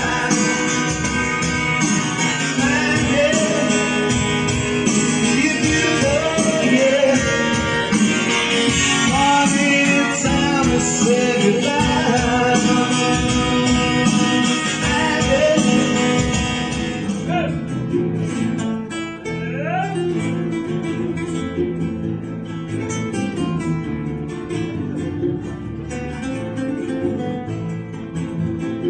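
A man sings to his own steel-string acoustic guitar. About two-thirds of the way through it cuts to two nylon-string classical guitars playing a flamenco-style piece together.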